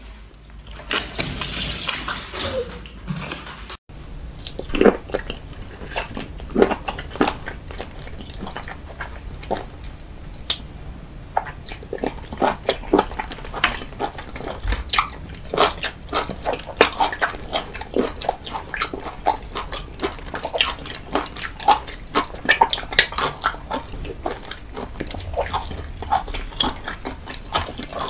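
Close-miked wet eating sounds: about three seconds of loud slurping and sucking, then, after an abrupt break, a long run of irregular sticky smacks and chewing squelches as cooked octopus tentacle is bitten and chewed.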